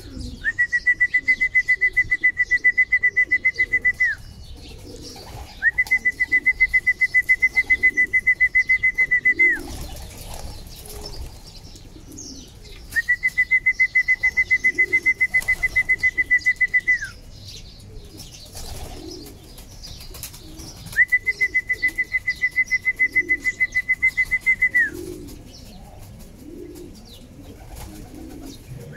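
Racing pigeons cooing and flapping their wings in a wire-mesh loft. Over them, the loudest sound is a high, fast-pulsing trill at a steady pitch that comes four times, each about four seconds long with a pause of a few seconds between.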